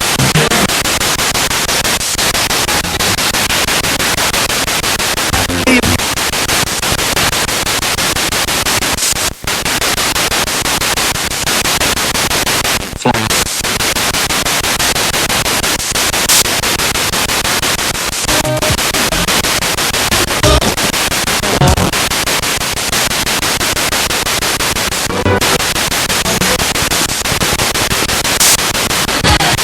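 Spirit box radio sweeping rapidly through the stations: a loud, continuous hiss of static chopped into fast pulses. Brief snatches of broadcast voices and music break through here and there.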